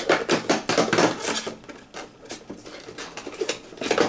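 Rapid rustling and crinkling of cardboard and paper packaging as an advent calendar compartment is opened and a foil sample is taken out. The crackle is densest in the first second and a half, thins out, then picks up again near the end.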